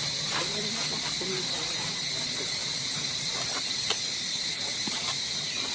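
Steady, high-pitched drone of an insect chorus, unbroken throughout, with a few faint clicks scattered through it.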